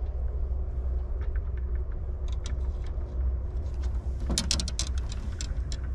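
A hooked carp thrashing at the landing net: scattered splashes and a burst of sharp splashing about four seconds in, over a steady low rumble.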